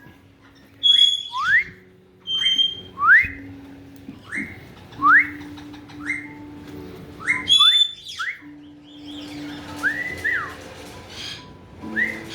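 Caique parrots whistling: a run of short whistles that sweep upward, about one a second, broken by a few harsher, higher calls. Near the end come repeated rise-and-fall whistles.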